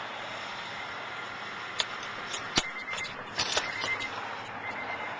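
Steady background hiss with a few sharp clicks or taps around the middle and a faint, broken high beeping tone in the second half; no engine running.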